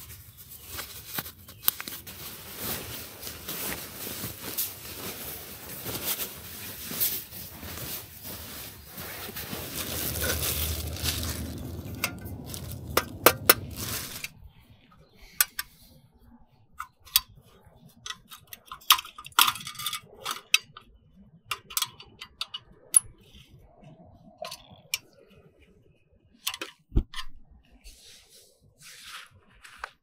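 Rustling and crinkling handling noise dotted with clicks, giving way about halfway through to scattered separate clicks and knocks.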